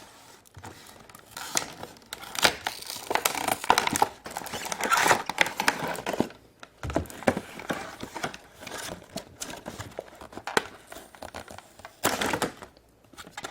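Packaging of a toy surprise egg being opened by hand: irregular crinkling and tearing with scattered small clicks and knocks.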